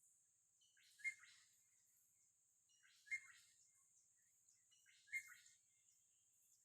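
A bird calling faintly, three short chirping calls about two seconds apart, over a steady high hiss.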